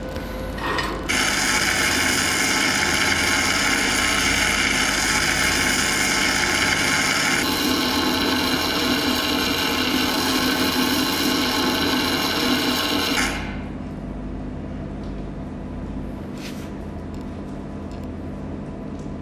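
Arc welding with a gas-shielded wire-feed torch: a loud, steady sizzling crackle that starts about a second in, shifts in tone about halfway, and cuts off abruptly about thirteen seconds in, leaving a low steady hum.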